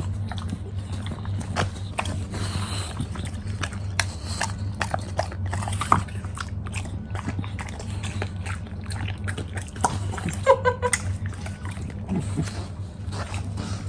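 English bulldog chewing and crunching apple pieces with wet, sloppy mouth sounds, an irregular run of sharp crunches and smacks.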